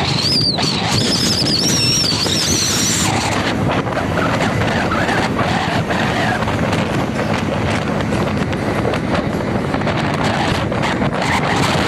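Steady road and wind noise from a moving vehicle driving along a highway, with wind buffeting the microphone. A wavering high whistle sounds over the first three seconds.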